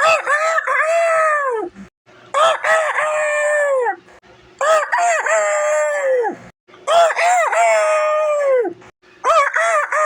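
A person's voice imitating a rooster's cock-a-doodle-doo crow, five times in a row about two seconds apart; each crow wavers up at the start, holds, then drops away at the end.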